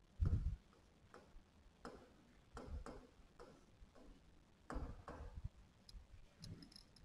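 Pen tapping and scraping on a writing board as words are written by hand: a run of faint, irregular ticks and short strokes, with a low thump about a third of a second in.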